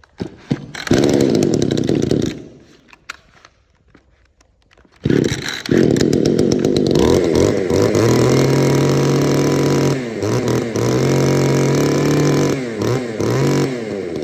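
Small two-stroke mini chainsaw cold-started on choke: it fires briefly about a second in and dies. About five seconds in it starts again and keeps running, its engine speed rising and dropping several times as the throttle is blipped.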